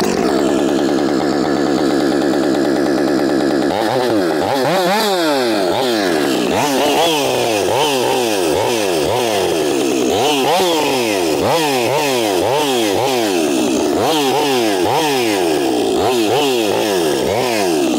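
Ported Husqvarna 562 XP Mark II two-stroke chainsaw running on its lower-flow summer air filter. It idles steadily for a few seconds, then is revved up and let back down again and again, its pitch rising and falling about once a second.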